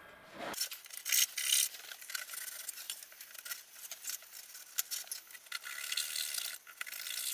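A hand blade cutting through balsa wood, severing the wing's leading edge, ribs and trailing edge to free the aileron: a rough, scratchy rasping in uneven strokes with small clicks.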